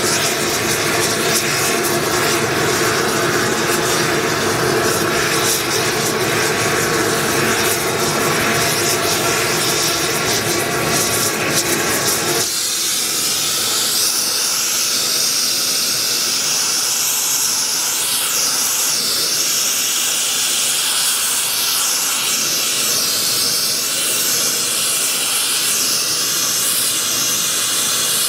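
Large propane torch flame running steadily against a copper locomotive boiler as it is heated for silver soldering. About halfway through the sound changes suddenly, losing its lower rumble and becoming a higher hiss.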